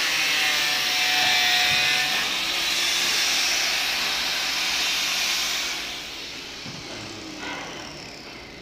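Handheld electric disc sander running against the wooden panels of a teak door, a steady loud abrasive whir that stops about six seconds in, leaving a quieter workshop background.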